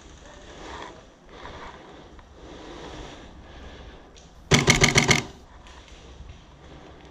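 A short burst of automatic airsoft gunfire, a rapid string of shots lasting under a second, about four and a half seconds in.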